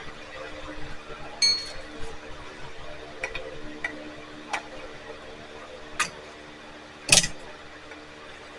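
Scattered small clicks and taps of tools and trimmer parts being handled at a workbench, with a brief ringing metallic clink about a second and a half in and a louder knock near 7 seconds, over a faint steady hum.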